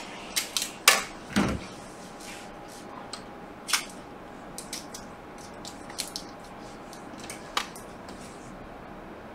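Small clicks and taps of metal tweezers and fingers handling a laptop's display flex cable on a workbench, the sharpest few in the first second and a half, with scattered lighter ticks after. A faint steady tone hums underneath.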